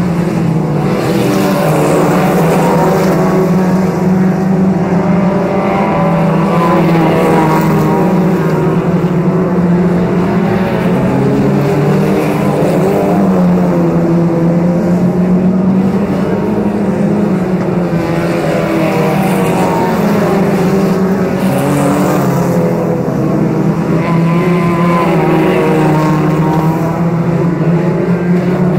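Several FAC1600-class autocross cars racing on a dirt oval, their engines revving up and down, overlapping as they lap, over a constant low engine drone.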